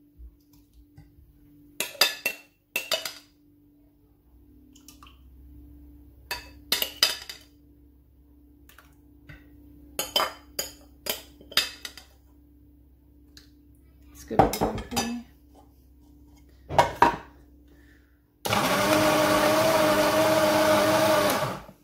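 A metal spoon clinks and scrapes against a glass bowl and a steel grinder jar as tamarind pulp is spooned across. Near the end, an electric mixer grinder runs steadily for about three seconds, grinding soaked tamarind pulp to a paste, and then cuts off.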